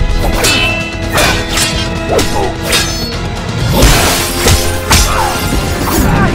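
Dramatic background music under a rapid run of fight sound effects: weapon swooshes and hard hits. A glass lamp shatters with a loud crash just before four seconds in.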